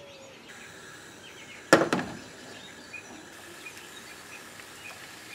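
A frying pan set down on a gas stove's metal grate: one sharp knock about two seconds in, otherwise only faint background noise.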